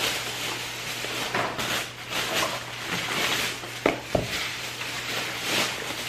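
Kitchen handling noise: dishes and glassware shifting and clinking, with two sharp knocks about four seconds in, over a steady low hum.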